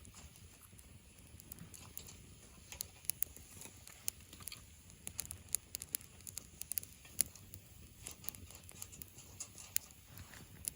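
Wood campfire crackling, with irregular pops and snaps scattered through, several coming in quick clusters.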